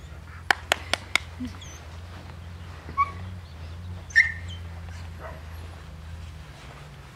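Puppies at play giving two short, high yips, about three and four seconds in, over a steady low hum. A few sharp clicks come near the start.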